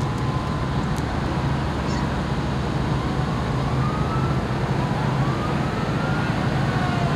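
Steady low engine hum of parade vehicles moving at walking pace: a pickup truck towing a trailer, with riding lawn mowers behind. A faint tone slides slowly up and down in the background.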